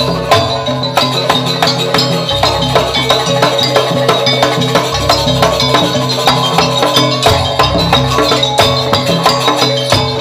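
Live traditional East Javanese jaranan barong ensemble music: fast, steady percussion strokes over sustained low pitched notes.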